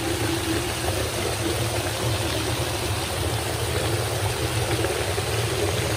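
Water jets of a ground-level splash fountain spraying up through metal grates and splattering onto granite paving and wet leather boots: a steady rushing splash over a steady low hum.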